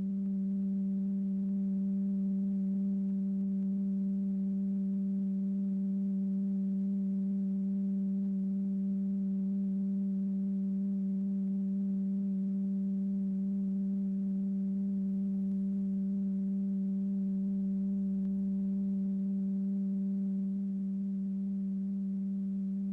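Steady low electronic tone from the oscillator driving a vibrating diaphragm in a cymatics experiment, one unwavering note with faint higher overtones. It drops slightly in loudness near the end.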